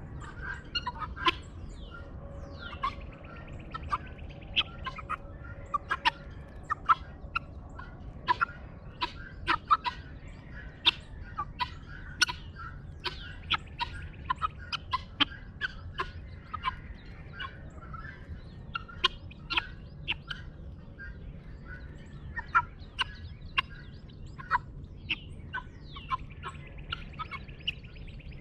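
A flock of guineafowl calling continuously in short, sharp notes, several a second. Other birds sing faintly, over a steady low background rumble.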